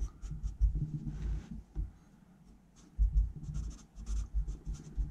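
Marker pen writing on paper in short scratchy strokes, with soft low thuds from the hand and paper on the desk, and a brief pause partway through.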